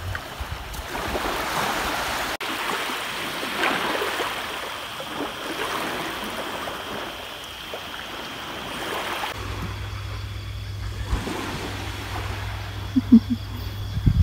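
Small waves washing in soft swells on a sandy shore. About nine seconds in the sound changes abruptly to a fainter wash over a low steady rumble.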